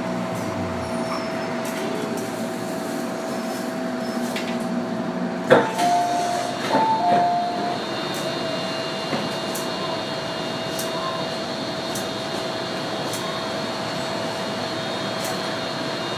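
Inside a Hong Kong MTR M-train car: the traction motors' falling whine dies away as the train comes to rest, leaving the steady hum of the car's equipment. About five seconds in comes a sharp thud, then a short two-tone chime lasting about two seconds.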